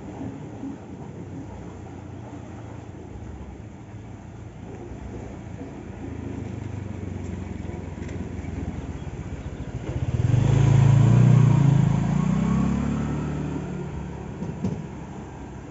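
A motor vehicle's engine approaching and passing close by. A low engine hum builds through the first ten seconds and is loudest about ten seconds in, then drops in pitch and fades away.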